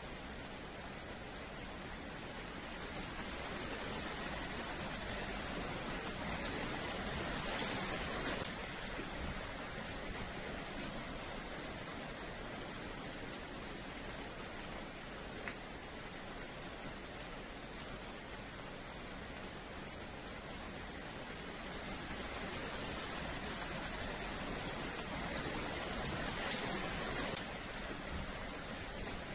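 Rain falling steadily on wet paving, a continuous hiss that swells louder twice, about a quarter of the way in and near the end.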